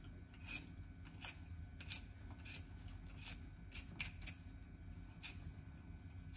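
A raw potato being peeled by hand: the blade scrapes across the skin in short strokes, about one or two a second.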